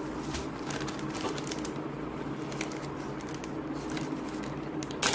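Scattered light clicks and rustles of box contents being handled during an unboxing, with a sharper, louder click near the end, over a steady low hum.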